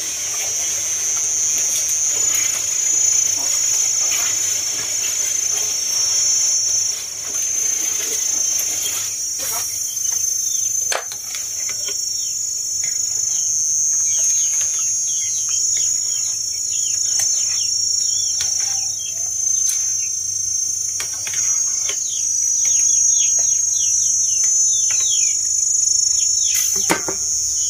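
Insects chirring steadily at a high pitch, with many short falling chirps over the last two-thirds and a few clicks about ten seconds in.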